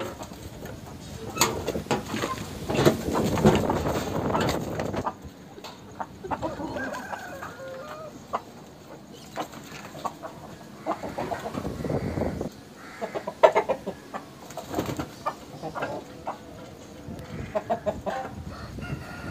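Aseel chickens clucking in short, scattered calls, with a stretch of rustling noise through the first five seconds.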